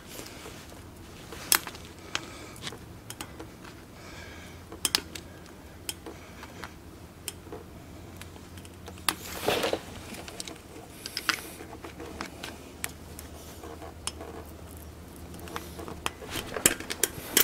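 Light metal clicks and scrapes of a small flat-tip screwdriver prying a snap ring out of a G2 manual locking hub, with scattered clinks of the hub parts and a longer scrape about nine seconds in.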